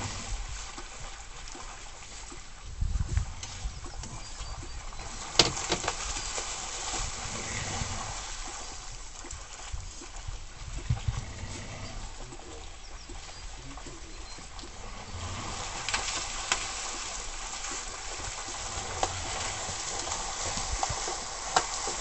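Water splashing and sloshing as wolves and a cow moose with her calf thrash through a shallow pond, over a steady hiss. A few sharp clicks and low thumps break through, the sharpest click about five seconds in.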